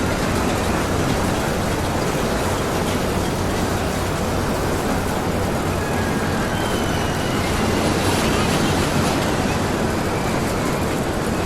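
Road traffic ambience: a steady wash of passing traffic noise, with a few faint short high tones about midway.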